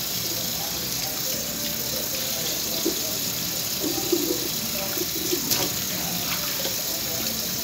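Kitchen tap running steadily into a bowl in the sink. A few brief knocks about halfway through.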